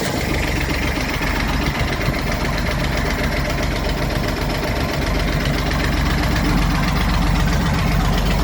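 Beta 25 hp three-cylinder marine diesel running with a knocking sound, a rapid even rhythm of knocks over the engine note, at 700 hours. It grows a little louder from about five seconds in.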